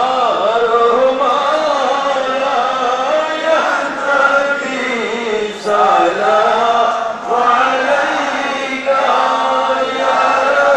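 Many men's voices chanting an Islamic devotional Milad chant together, a melodic line sung in phrases with brief breaks between them.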